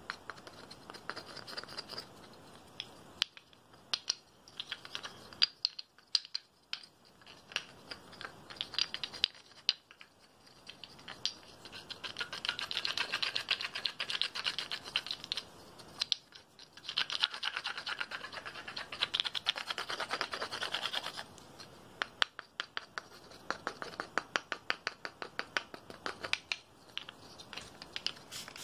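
Close-miked fingernail tapping and scratching on a hand-held object: many quick, sharp taps, with two longer stretches of dense rapid scratching in the middle.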